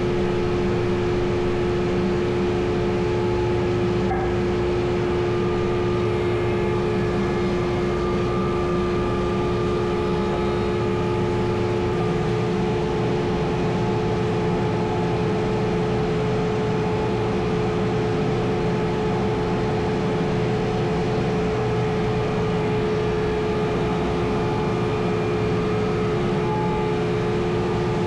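Wood lathe running steadily: a constant motor hum with two strong steady tones.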